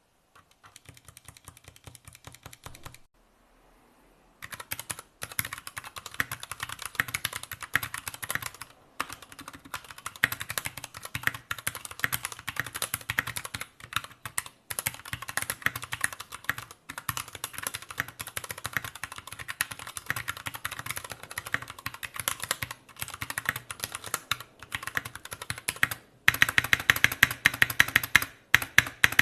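Fast typing on an Anne Pro 2 60% mechanical keyboard with Gateron Brown tactile switches: a rapid, dense run of key presses. It starts softer, stops briefly about three seconds in, then runs on steadily and grows louder in the last few seconds.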